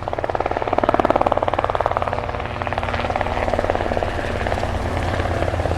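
A radio-controlled airplane's propeller and motor running at speed, with a fast chopping buzz that swells to its loudest about a second in and then holds steady.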